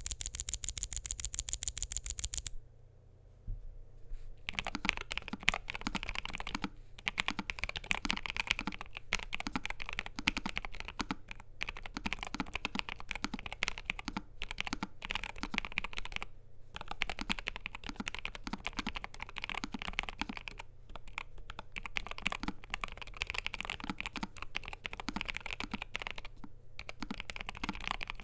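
Typing on a NuPhy Air75 V2 low-profile mechanical keyboard with NuPhy Cowberry switches, PBT double-shot keycaps and an aluminium plate: steady, fast key clacks with short pauses. It begins with a quick, evenly spaced run of sharp clicks lasting about two seconds, followed by a brief silence before the typing starts.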